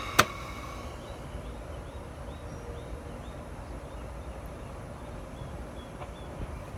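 A man's single loud hiccup, a short voiced 'hic' cut off sharply, just after the start, then steady outdoor background with faint bird chirps.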